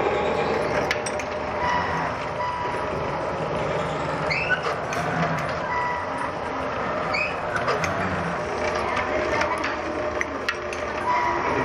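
Workshop drill press running and drilling into a steel motorcycle sprocket, a steady mechanical drone with scattered metallic clicks and two brief rising squeals.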